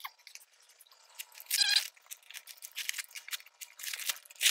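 Knife blade cutting open a cardboard box and its packing tape: a run of short, hissy slicing and tearing strokes, denser in the second half.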